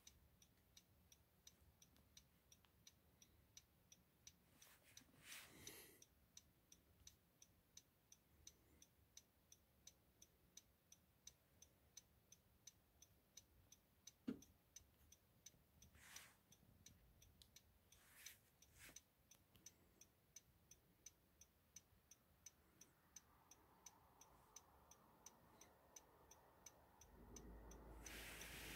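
Near silence with a faint, even ticking about two times a second. A low rumble comes up near the end.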